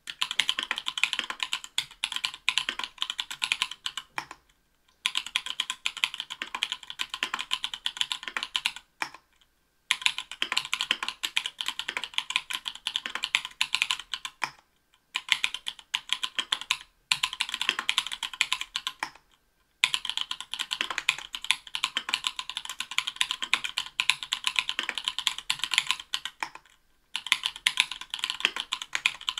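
Fast typing on a mechanical keyboard with stock, unlubed Everglide Bamboo Leaf Green 62 g tactile switches in an aluminium plate under Cherry-profile PBT keycaps: dense runs of keystroke clacks, broken by about six short pauses of under a second.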